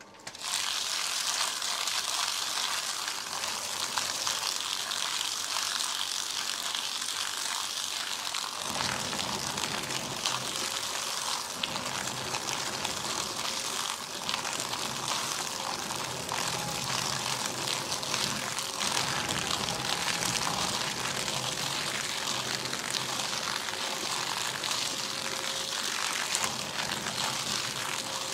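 Paper shredder running and cutting paper, a continuous dense noise; about nine seconds in, a lower motor hum joins it and carries on.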